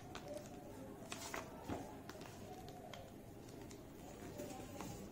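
Faint handling of a sheet of origami paper as it is folded and pressed flat by hand: soft rustles with a few short, sharp crinkles about a second in.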